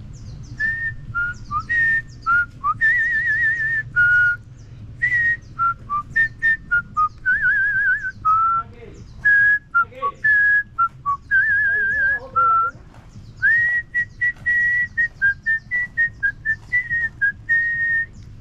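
A man whistling into a handheld two-way radio: a long run of short, clear notes, some held steady and some trilled, with small clicks between them.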